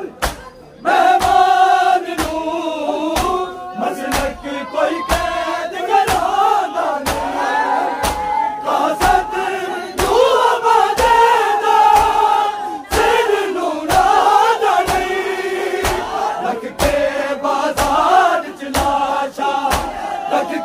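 Male mourners chanting a noha in chorus behind a lead reciter, with a steady beat of open-hand chest-beating (matam) slaps, a little under two a second. The singing comes in about a second in; before that only a few slaps are heard.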